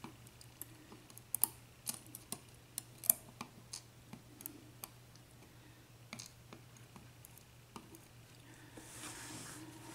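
Light, irregular clicks and ticks of small lock pins from a 7-pin Dorma mortice cylinder being handled and moved on a hard surface, with a soft rustle near the end.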